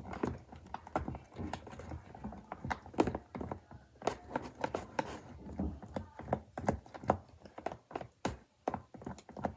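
Spoon stirring slime mixture in a container: a steady run of irregular clicks, taps and knocks, several a second.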